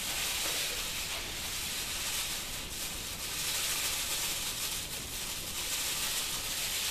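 Coarse granulated sugar pouring out of a plastic bag into a plastic barrel: a steady hiss of sliding grains.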